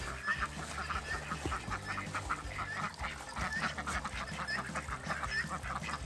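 A group of domestic ducks quacking and chattering, many short calls overlapping several times a second.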